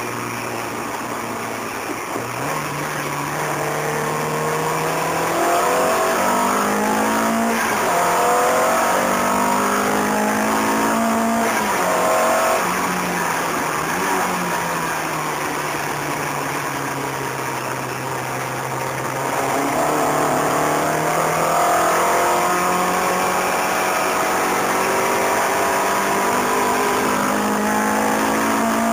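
Car engine heard from inside the cabin at track speed, the revs climbing and falling again and again as it is driven hard through gear changes, braking and corners, over steady road and wind noise.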